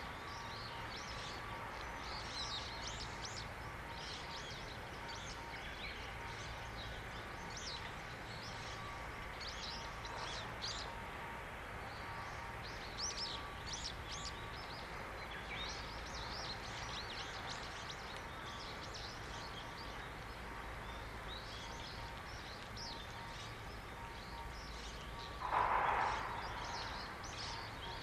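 Small birds chirping in quick, repeated short calls over a steady distant hum and rumble. A brief louder rush of noise comes near the end.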